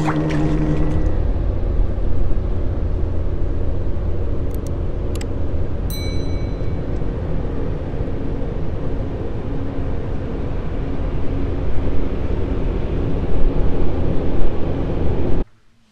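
Steady road and engine rumble heard inside a moving car, with a couple of clicks and a short ringing chime about six seconds in. The rumble cuts off suddenly just before the end.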